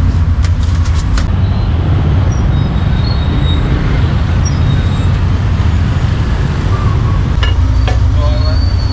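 Steady low rumble of street traffic, with a few sharp knocks about a second in. Near the end come cleaver chops on a wooden chopping block, cutting roast duck.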